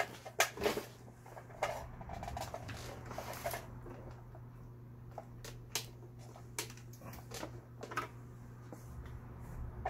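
Singer 7256 computerized sewing machine running its bobbin winder: a steady low motor hum, with scattered clicks and taps as the machine is handled.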